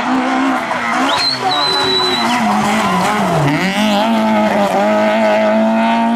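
Rally car's engine running flat out through a gravel corner, its note dipping about halfway through and then climbing steadily again, with gravel noise from the tyres. A thin, steady high whistle-like tone sounds for about a second near the start.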